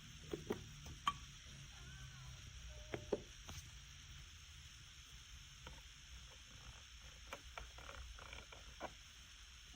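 Scattered light clicks and taps at an irregular pace over a faint steady hiss: a few sharper clicks in the first four seconds, then a quicker run of small ticks near the end.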